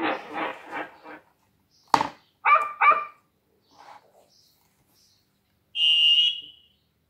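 Sound-book chip played through a small speaker: a click, then a dog barking twice, 'woof, woof'. Then a guard's whistle blown once as a short, shrill, steady tone.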